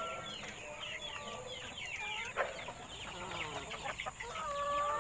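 Chickens clucking and chirping, with many short, high, falling chirps and a longer held call near the end.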